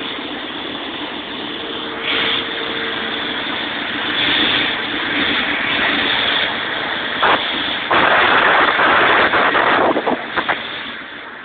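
Sullair 16-100 compressor running steadily, with a louder rushing stretch and a few sharp clicks about eight seconds in.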